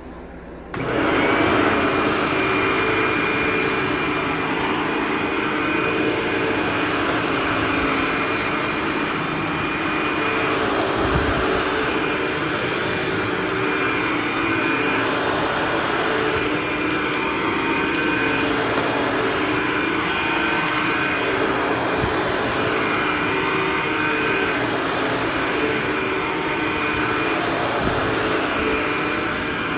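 Hoover Dial-a-Matic U6041 upright vacuum cleaner switched on under a second in, then its motor running steadily with a high-pitched whine over the hum.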